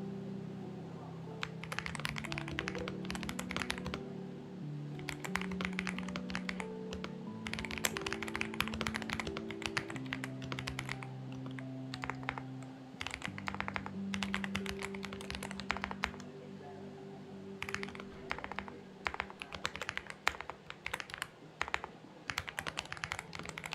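Typing on a Xinmeng X98 mechanical keyboard: rapid runs of key clicks in bursts of a few seconds with short pauses between, over quiet background music with slow held notes.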